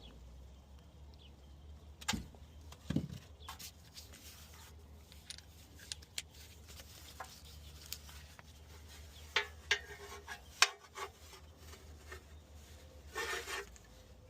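Scattered small metallic clicks and clinks of bolts and hand tools, with one sharper knock about ten and a half seconds in, as pan bolts are started by hand into a transmission oil pan.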